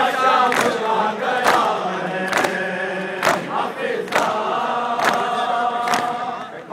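A crowd of men chanting a Shia mourning lament (latmiyya) in unison. Loud collective chest-beating lands about once a second, in time with the chant.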